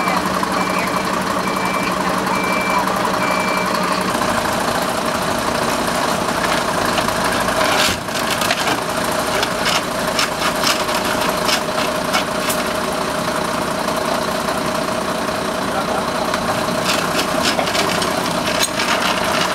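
Tow truck engine running steadily, with its reversing alarm beeping at an even pace until about four seconds in. A few sharp clicks and knocks sound over it later on.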